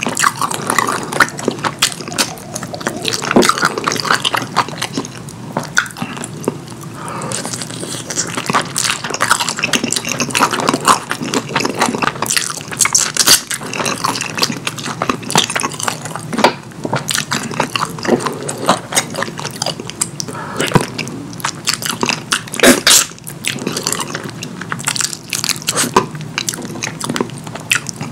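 Close-miked eating sounds: wet chewing and mouth sounds of someone eating saucy curry, with many short sticky clicks.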